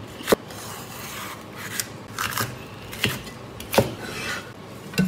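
Cleaver slicing peppers into strips on a plastic cutting board: about five separate sharp knocks of the blade meeting the board at uneven intervals, with soft scraping of the blade and pepper pieces in between.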